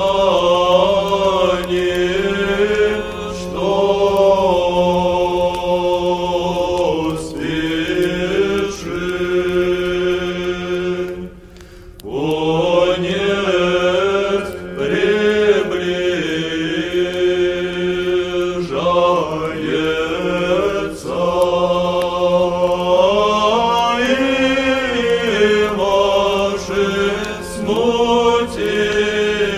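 Sung Orthodox church chant: a slow melodic vocal line over a low note held steadily beneath it, with a short break about eleven seconds in.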